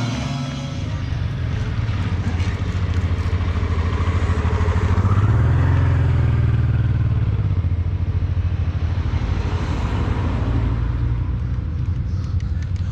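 Car climbing a steep road: a low engine rumble with tyre noise, swelling about five seconds in and easing off toward the end.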